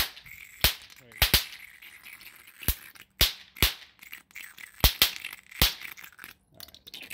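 A homemade 330-volt DC water-fed plasma jet arcing at its electrode nozzle: loud, sharp electrical snaps about a dozen times at irregular spacing, some in quick pairs.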